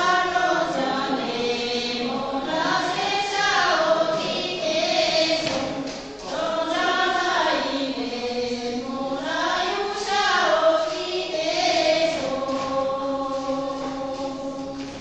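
A group of Sherpa women singing a Shyaptro dance song together without instruments, in long, slowly rising and falling held notes. The singing tails off near the end.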